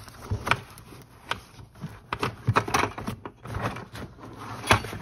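Handling noise of a canvas bucket organizer being worked down over a plastic 5-gallon bucket: fabric rustling and scraping, with irregular knocks and clicks from the bucket and its wire handle, the sharpest near the end.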